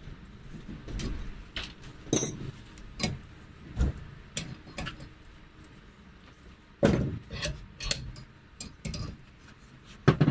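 Irregular metal-on-metal strikes and clinks with a brief ring, blacksmith's tools working the car-spring steel at the anvil. The loudest strikes come about two seconds in and again around seven to eight seconds.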